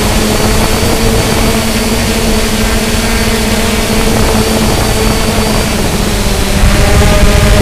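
Multirotor drone's motors and propellers whirring steadily: a hum of several steady tones over a rushing hiss, with the pitch shifting slightly near the end.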